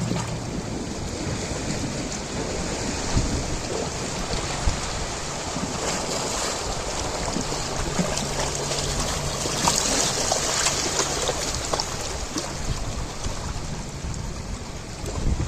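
Ocean waves washing in steadily, with fizzing, crackling surf and a swell of hiss about two-thirds through as a wave breaks.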